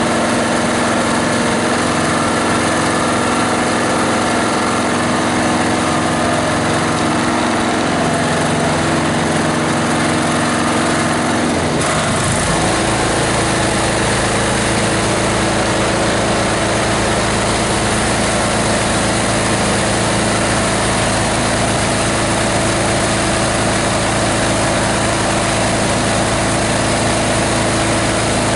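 18 HP diesel engine driving a multi-blade plastic grinder, running steadily. About twelve seconds in its tone shifts abruptly and a lower hum joins in for the rest of the clip.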